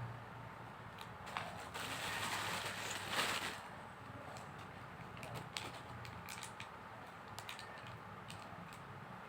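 Packaging being opened by hand: scattered small clicks and crackles, with a rustle about two to three and a half seconds in.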